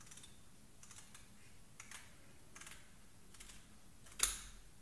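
Scissors snipping through the fin fringe of a skinned Dover sole: a string of short, crisp snips, with one louder snip near the end.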